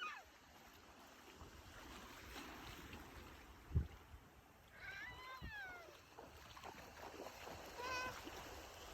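Small waves washing on the shore, with a few brief high cries: one falling cry about five seconds in and a shorter one near the end. A single low thump comes about four seconds in.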